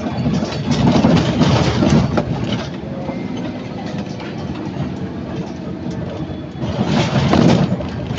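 Scania N230UD Omnicity double-decker bus under way: engine running with a rattling body, swelling into two louder surges, about a second in and again near the end.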